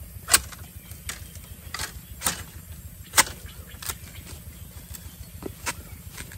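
A metal digging bar jabbed into soil and bamboo roots to dig out a wild bamboo shoot: about eight sharp, irregular strikes, loudest near the start and again about three seconds in.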